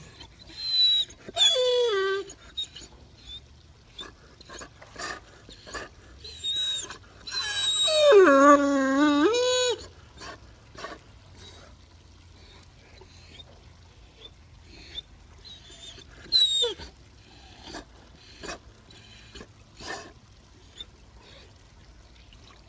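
Great Dane vocalizing: high, squeaky whines that slide down in pitch about a second in, then a long, wavering, moaning 'singing' call of about two seconds starting some eight seconds in. A short squeak falling in pitch comes near the middle, with small soft noises between the calls.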